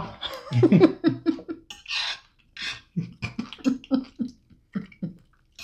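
Stifled laughter: a few breathy puffs, then a run of short voiced chuckles about three a second near the end.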